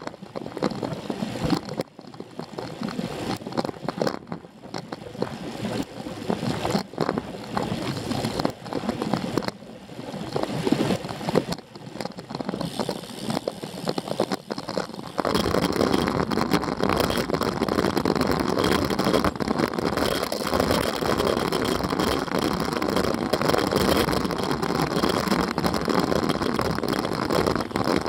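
Wind rushing over a moving bicycle-mounted camera's microphone during a road-bike descent, gusty and uneven at first, then suddenly louder and steady about halfway through.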